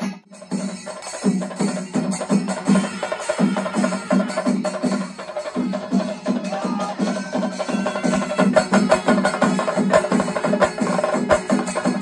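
Kerala chenda melam: an ensemble of chenda drums beaten in fast, dense, even strokes.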